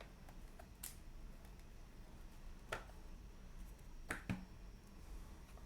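Trading cards being handled and sorted by hand, with four short sharp clicks of cards snapping against each other, two of them close together near the end.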